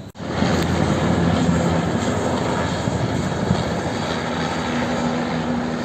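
Helicopter flying low overhead: a loud, steady roar of rotor and turbine engine noise with a low droning tone, coming in suddenly at the start.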